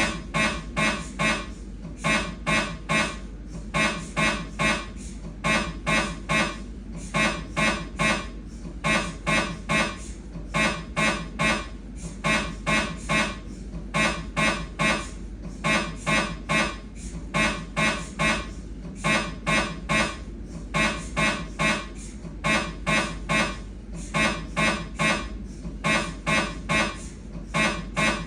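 Siemens MAGNETOM Lumina 3 T MRI scanner's gradient coils running a coronal STIR (fat-suppressed) turbo spin echo sequence. It makes a loud rhythmic series of pitched, beeping pulses in groups of about four with short gaps, over a steady low hum.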